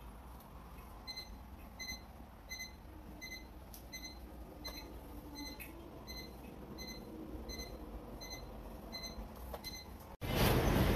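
Faint electronic beep repeating evenly, about one every three-quarters of a second, a dozen times. Just after ten seconds in, the sound switches abruptly to much louder steady rushing noise.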